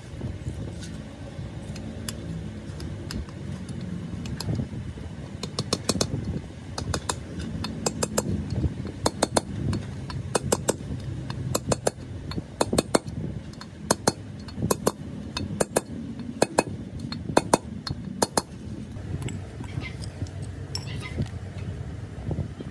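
Sharp metallic taps of a hammer driving a seal into the bore of a pump's aluminium seal housing. The taps come singly and in quick runs of two or three, with short pauses between, over a steady low rumble.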